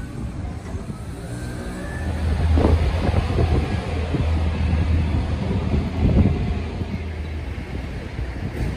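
A motor vehicle's engine with a low, steady hum, growing louder about two seconds in and fading again near the end, over general street noise.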